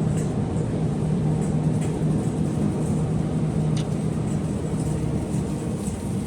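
Steady supermarket background: a low, even hum and rumble of store machinery and ventilation, with a couple of faint light clicks.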